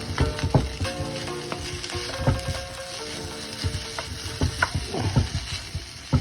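Fried rice sizzling in a hot pan while it is stirred, with a spatula repeatedly scraping and knocking against the pan.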